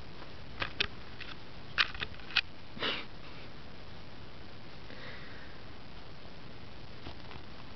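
A handful of short, sharp sniffs or puffs of air close to the microphone, about six in the first three seconds, the last one a little longer. After that only a steady faint hiss.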